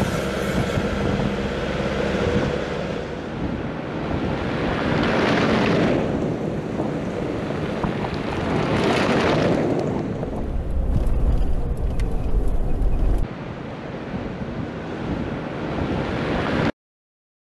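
Road and wind noise from a moving vehicle, then two swelling whooshes and a deep rumble, cutting off to silence near the end.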